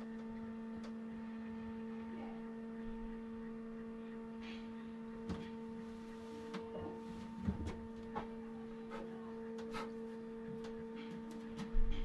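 A steady electrical hum with a higher overtone, starting abruptly and holding one pitch, with scattered small clicks and taps of handling over it and a louder knock near the end.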